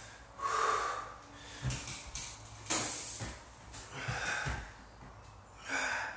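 A man breathing hard from exertion during walkout push-ups: about five short, forceful breaths, roughly one every second or so, with a couple of soft low thuds between them.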